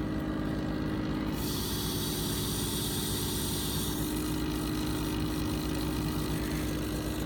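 Pump running steadily at 30 psi discharge with its bypass valve set to 60 psi, a smooth hum without bypass engagement noise, since the pressure is well below the bypass setting. A higher hiss joins the hum about a second and a half in.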